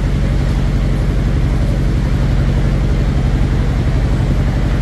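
A steady, loud, low mechanical drone that stays unchanged throughout.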